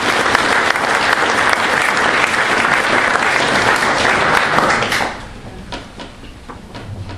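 Audience applauding, dying away fairly suddenly about five seconds in, followed by a few faint knocks.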